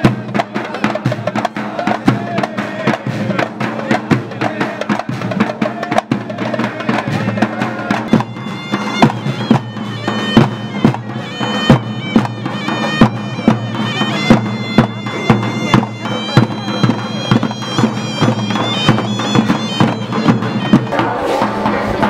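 Tunisian folk music: frame drums and a large double-headed drum beat a steady rhythm, and a reedy wind instrument plays an ornamented melody over them, coming in clearly about eight seconds in.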